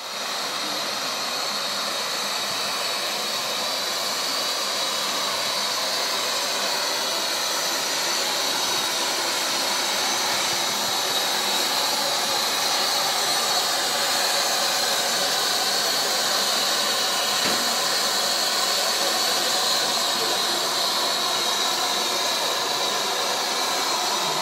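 Metre-gauge Mallet tank steam locomotive No. 403 standing with steam up, venting steam in a loud, steady hiss that starts suddenly.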